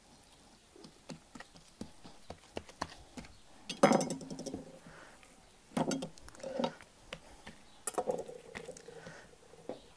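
Boning knife cutting through a raw pork neck on a wooden board: many small ticks and clicks, with three louder bursts of handling noise, about four, six and eight seconds in, as the cut meat is folded open and pressed flat.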